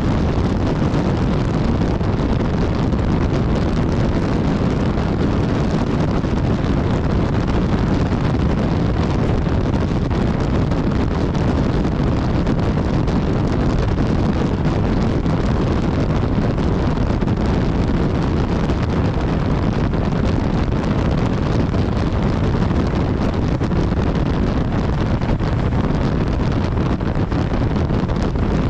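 Steady wind rush over the microphone of a BMW S1000XR motorcycle riding at speed, loud and unbroken, with no change in pace.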